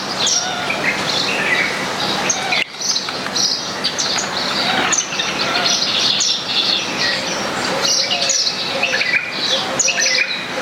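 Many small garden birds chirping together, a dense run of short, overlapping high chirps and squeaks, with a brief break about a quarter of the way in.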